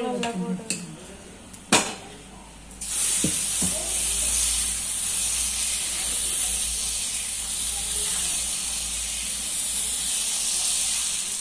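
Dosa batter sizzling and hissing on a hot cast-iron tawa as it is poured and spread with a ladle. The hiss starts suddenly about three seconds in, after a couple of sharp clicks, and eases slightly near the end.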